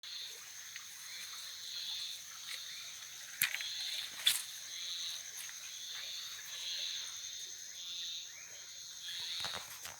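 Night chorus of insects: a steady high-pitched drone with a pulsing high call repeating a little more than once a second. Two sharp clicks come about a third of the way in.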